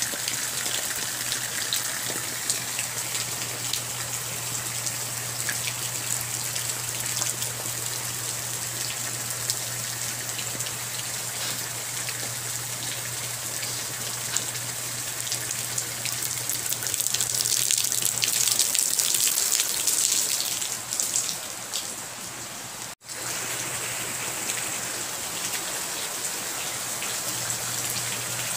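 Rain falling on desert scrub and ground: a steady dense patter of drops that grows heavier for a few seconds past the middle. It cuts out for an instant a little before the end, and a faint low hum runs underneath.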